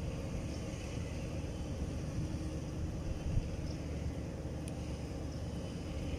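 Steady low wind rumble on the microphone over open shallow water, with one soft thump a little past halfway.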